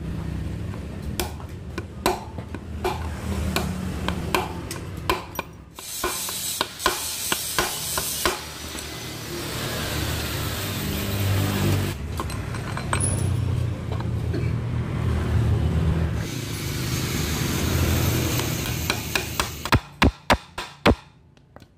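Hand-tool work on a scooter's CVT rear pulley while its shaft bearings are being replaced: irregular metal clinks, knocks and scraping, over a steady low hum. Near the end comes a quick run of about six sharp taps.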